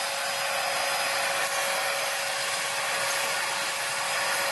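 Bissell Zing bagged canister vacuum running steadily while vacuuming carpet: an even rush of air with a steady whine from the motor.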